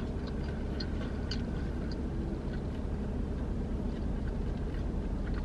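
Steady low hum of a car cabin, with a few faint soft mouth clicks from chewing in the first second or so.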